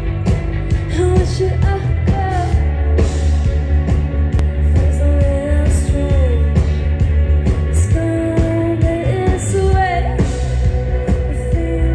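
A live rock band playing loud: a woman singing over electric guitars, electric bass and a drum kit, with a heavy low end.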